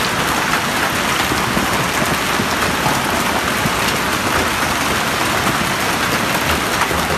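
Hailstorm: hailstones and rain pelting a paved street, a loud, steady hiss thick with tiny ticks of impacts.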